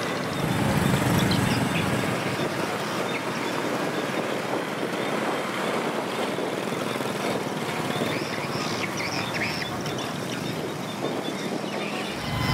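Small motorcycles riding slowly across a railway level crossing, engines running, over general outdoor traffic noise.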